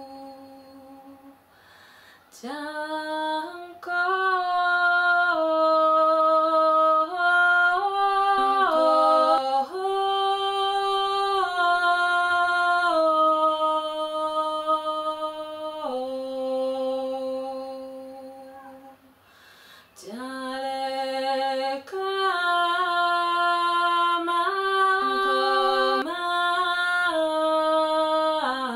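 A woman singing solo and unaccompanied in long held notes that step up and down between pitches, in a sound-healing chant. One phrase runs from about two seconds in and fades out, then after a short pause a second phrase begins.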